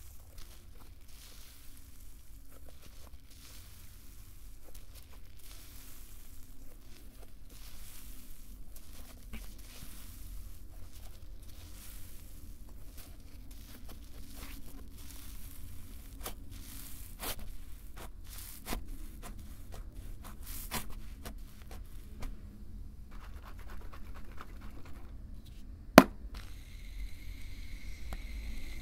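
Fluffy cloud slime made with instant snow being stretched and squeezed by hand, giving soft crackling, tearing and squishing sounds. Near the end a sharp click is followed by a steady hiss as shaving foam is sprayed from an aerosol can onto the slime.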